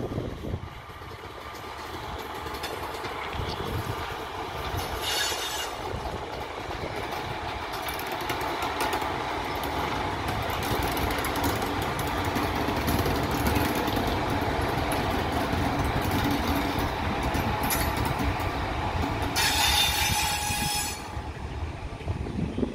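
Indian Railways express train, hauled by an electric locomotive, rolling past at low speed as it pulls into the station, its wheels rumbling and clattering over the rails. The rumble builds over the first ten seconds or so and then holds steady, with a short high-pitched sound about five seconds in and a louder one near the end.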